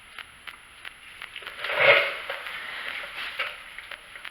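Hands working a rubber spark plug boot onto an ignition wire: faint rubbing and light clicks, with one louder brief rustle about two seconds in.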